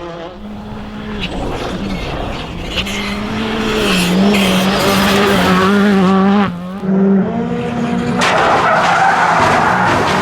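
Rally car engine held at high revs while the car approaches and passes, growing louder over the first few seconds, with a brief break in the engine note about six and a half seconds in. Near the end a burst of skidding tyre noise joins the engine.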